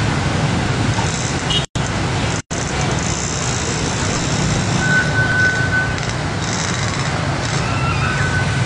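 Motorcycles and a car driving through shallow floodwater on a road: engines and water splashing make a steady noise, and the sound cuts out twice, briefly, about two seconds in. A thin, steady high tone sounds for about a second near the middle and again near the end.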